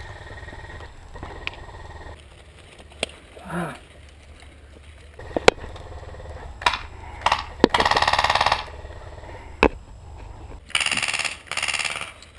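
Airsoft guns firing: scattered single sharp shots, a rapid full-auto burst about eight seconds in, and two more loud bursts near the end.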